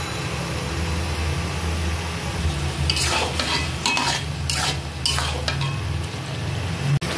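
A spatula stirring a thick potato and eggplant curry in a pan, with several scraping strokes about three seconds in that last for a couple of seconds, over a steady low hum.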